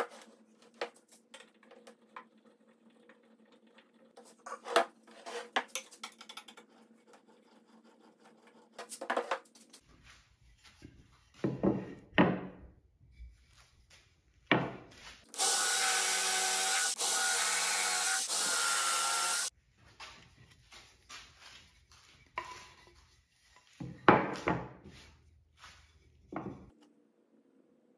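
Wooden boards knocking and clattering on a workbench as they are handled. About halfway through, a power saw cuts a wooden board for about four seconds with a loud, steady whine and stops abruptly.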